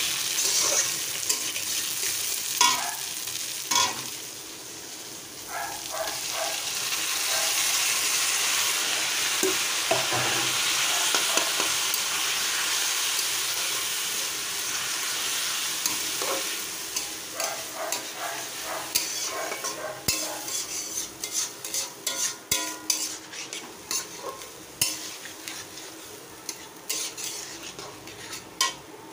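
Potatoes, tomatoes, lentils and rice frying in oil in a steel kadai, stirred with a metal spatula. A steady sizzle swells loud through the middle and then fades, leaving a run of sharp spatula clinks and scrapes against the pan in the last ten seconds.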